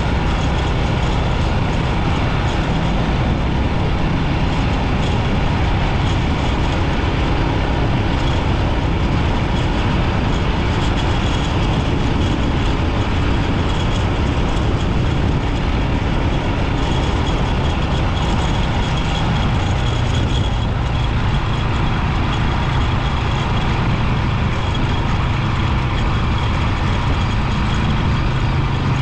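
Rusi 250 motorbike running steadily on the move, its engine note mixed with an even rush of road noise; the low engine tone grows a little stronger about two-thirds of the way through.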